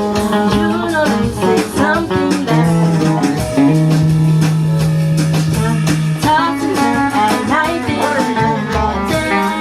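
Music: a song with guitar and drums, with a voice singing a bending melody over it.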